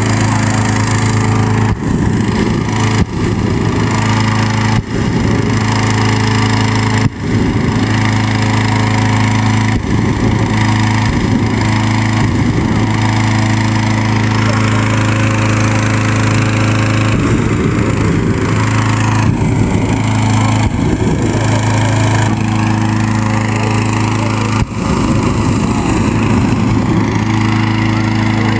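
Petrol-engine inflator fan running steadily at full speed, blowing cold air into a hot-air balloon envelope during cold inflation.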